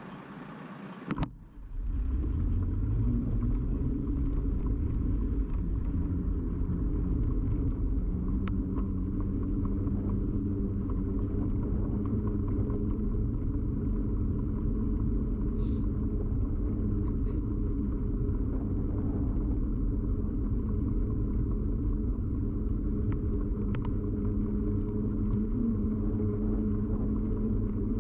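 Steady low rumble and hum of a bicycle ride picked up by a camera fixed to the bike: tyre and road vibration carried through the frame into the mount. It is quieter for the first second and a half, then rises to a constant level, with a few faint ticks along the way.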